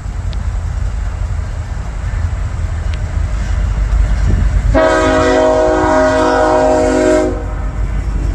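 Norfolk Southern locomotive air horn sounding one long chord of several notes for about two and a half seconds, starting near the middle. A steady low rumble runs underneath.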